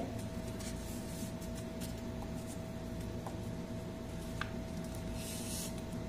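Faint rustling and rubbing of a sheet of lined notebook paper as it is folded and pressed flat by hand, with a few light ticks and a soft rub near the end, over a steady low hum with a faint steady tone.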